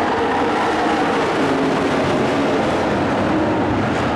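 A pack of stock race trucks' engines running together at racing speed, a steady, loud, dense drone of many engines at once.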